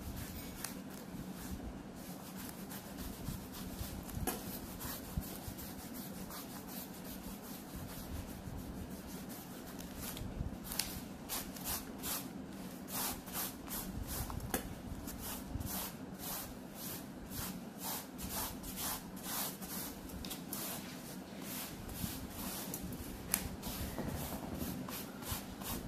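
Eraser rubbing out pencil marks on drawing paper in quick back-and-forth strokes, growing busier about ten seconds in, over a steady low hum.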